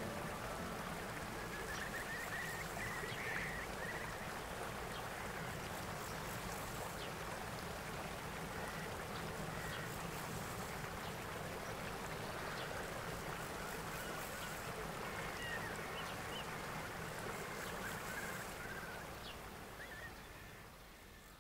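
River ambience: steady flowing water with faint, occasional bird calls, fading out near the end.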